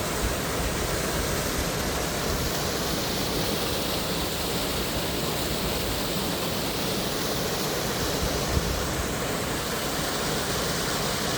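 Waterfall with plenty of water pouring over rocks: a steady, even rush. A few brief low thumps of wind on the microphone, one about eight and a half seconds in.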